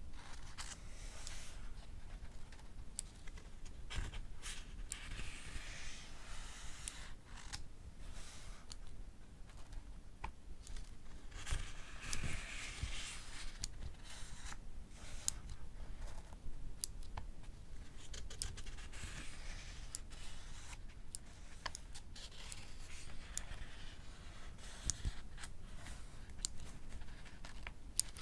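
Pages of a paperback book being turned with soft rustling swishes, mixed with sharp little clicks of a mechanical pencil pushing out its lead, scattered irregularly throughout.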